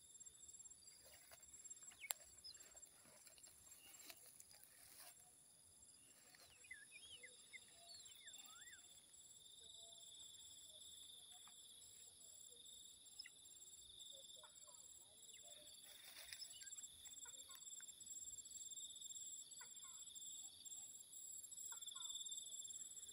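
Faint countryside ambience: a steady high-pitched insect drone, with scattered short bird chirps and calls throughout, and one sharp click about two seconds in.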